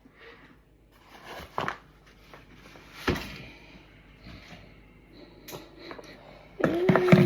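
Scattered knocks and clatter of kitchen bowl and utensils while cookie dough is being mixed, the sharpest knock about three seconds in. Near the end a louder burst of clatter comes with a held steady tone.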